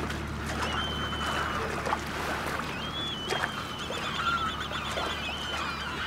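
Seabirds calling as they feed around a fishing boat, with thin high calls about a second in and again from about three seconds, the later one a rapid trill. A boat engine's steady low hum runs underneath.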